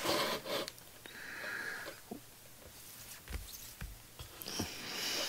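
Faint rustling and a few light ticks of comic books in plastic bags being handled and slid across a table.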